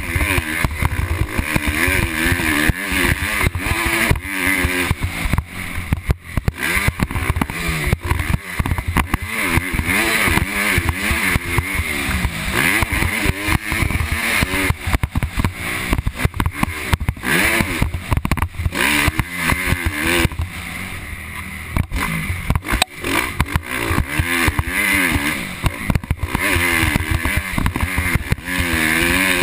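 Motocross dirt bike engine revving hard, its pitch rising and falling again and again as the rider accelerates and backs off along the track. Wind buffets the helmet-mounted camera throughout.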